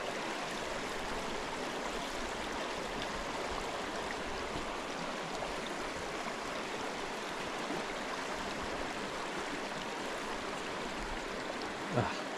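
Small stream running steadily over rocks, with a brief louder sound near the end.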